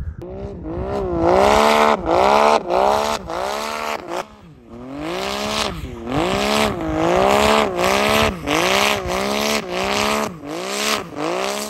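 Yamaha Sidewinder snowmobile's four-stroke turbocharged three-cylinder engine revving hard again and again, rising and falling in pitch about every half second, as the sled digs and churns through deep powder. Its revs drop briefly about four seconds in, then climb into the same repeated revving.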